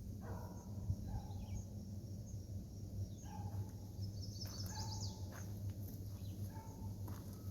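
Birds calling outdoors: several short chirps and sweeping calls, with a faster twittering run about halfway through, over a steady low hum.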